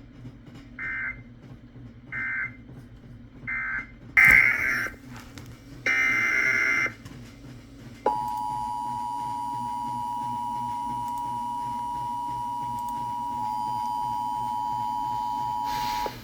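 Emergency Alert System signalling: three short screechy digital data bursts (the SAME end-of-message code), then two longer data bursts of the next alert's header, then the steady two-tone EAS attention signal held for about eight seconds and cut off.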